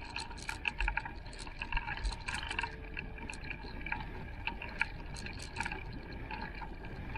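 Car driving along a bumpy forest track, heard as a low rumble with many irregular clicks and rattles.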